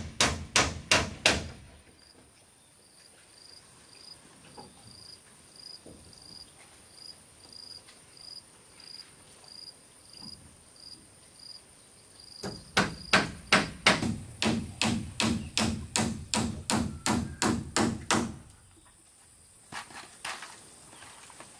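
Hammer striking wood in quick even runs of about three blows a second: a short run at the start, then a longer run of about six seconds from about halfway. Between the runs a steady high insect whine and a chirp repeating about twice a second can be heard, and near the end a few wooden knocks.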